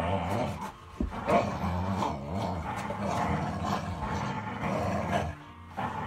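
Dogs growling as they play tug-of-war over a rope toy, a low continuous rumble that breaks off briefly about a second in and again near the end.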